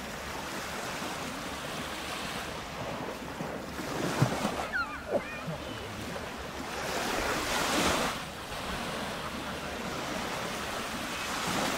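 Small Baltic Sea waves washing onto a sandy beach, with wind on the microphone; a louder surge of wash about seven to eight seconds in.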